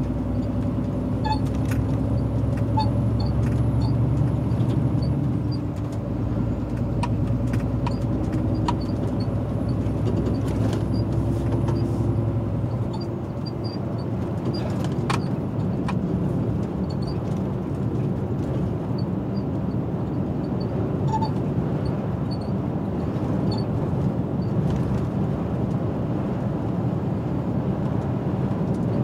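Inside a Scania R450 truck's cab on the move: the diesel engine's steady hum with road and tyre noise. After about a dozen seconds the engine hum is mostly covered by a coarser road noise. Small scattered ticks run throughout.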